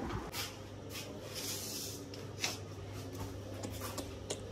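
Soft rustling and rubbing handling noise with a few light clicks, over a low steady hum.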